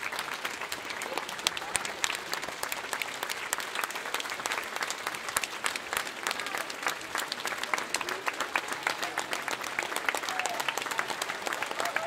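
Crowd applauding: dense, steady clapping from many hands.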